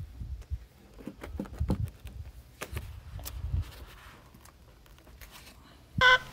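Clicks, rustles and low thumps of an electrical plug and extension cord being handled and pushed together against a foam-insulated PVC pipe. Right at the end a chicken starts a short cluck.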